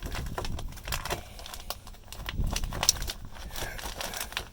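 Plastic wrapping on a bagged cheese crinkling and crackling as it is handled, with irregular clicks (a sharper one near the middle) over a low rumble of handling.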